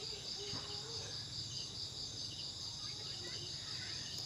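Insects trilling steadily, a continuous high-pitched pulsing chorus of the cricket kind, with a faint tap about half a second in.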